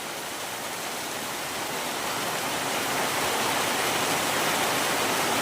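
Rain falling steadily, an even hiss that grows gradually louder.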